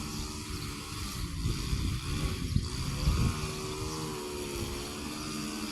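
An engine running steadily, its pitch wavering slightly, over rough low rumble.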